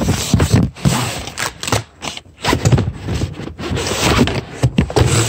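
Cardboard presentation box and paper packaging handled and opened right at the microphone: loud, irregular scraping and rustling in a run of short bursts.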